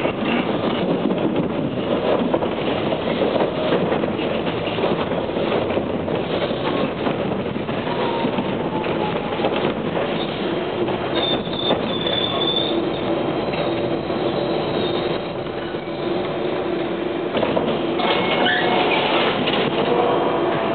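TTC H4 subway car running on the rails, heard from inside the car: a steady rumble of wheels and running gear, with a thin, high wheel squeal about halfway through.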